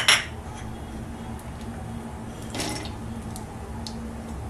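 Cashews and almonds dropping into an aluminium kadhai: a sharp clatter at the start, a few light clicks, and another short clatter about two and a half seconds in. A low steady hum runs underneath.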